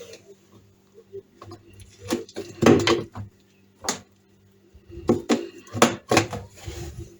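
A series of knocks and clatters from household objects being handled and set down, in two clusters with a single knock between them, over a faint steady hum.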